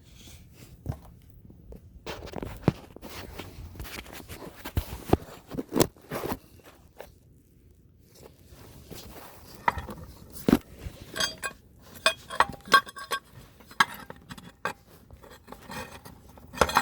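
Irregular knocks, scrapes and metallic clinks as the spare tire and its underbody hoist are worked loose from beneath a Chevy Suburban. Some of the clinks ring briefly, and they come thickest in the second half.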